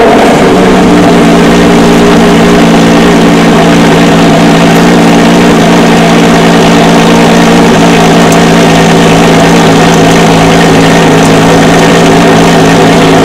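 Aston Martin One-77's 7.3-litre V12 idling loudly and steadily just after being started, its pitch holding even.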